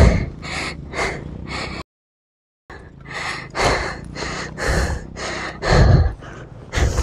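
A person panting hard with quick, rhythmic breaths, about two to three a second, from the effort of heaving a fallen motorcycle upright. The sound drops out briefly about two seconds in.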